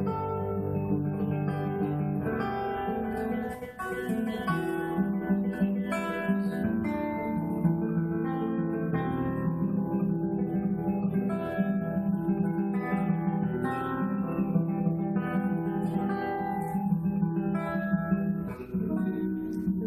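Solo classical guitar playing a flowing run of plucked notes over low bass notes, with brief pauses a little before four seconds and again near the end.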